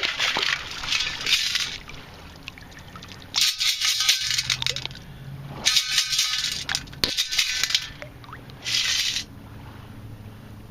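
Sand being shaken and sifted through a metal sand scoop in four separate bursts of hissing rattle.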